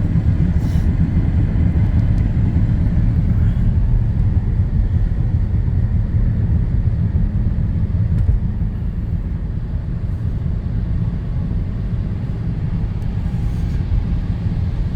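Steady low rumble of a car's engine and tyres heard from inside the moving vehicle's cabin.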